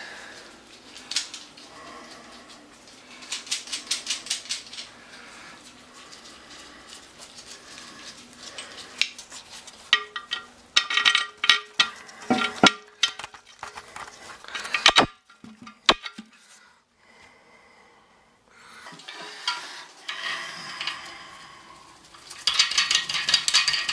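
Small metal toilet-tank mounting hardware (tank bolts, washers and nuts) clinking and rattling against itself and the porcelain while the tank is fastened to the bowl. It comes in several bursts of quick clinks, with a couple of sharp clicks about fifteen seconds in.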